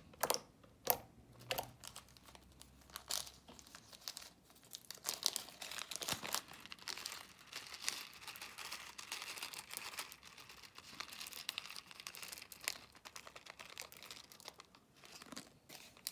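Clear slime worked by hand, squeezed and stretched: a few sharp sticky clicks at first, then a dense run of crackling and popping air bubbles that stops suddenly at the end.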